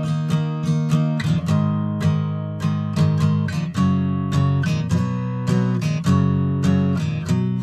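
Guitar chords strummed in a steady rhythm, about three strokes a second, with the chord changing every second or so. It is played with a capo on the first fret to raise the tuning a half step toward A447.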